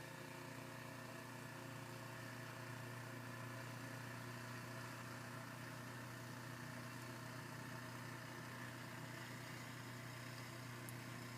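A steady low mechanical hum, unchanging throughout, under a faint hiss.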